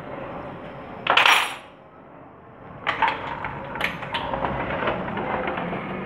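A short, loud rasping burst about a second in, then a run of irregular light clinks and knocks from about three seconds on.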